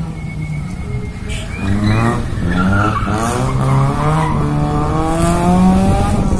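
A drift car's engine revving hard, its pitch rising and falling several times, while its tyres squeal as it slides sideways. The engine gets louder about a second and a half in.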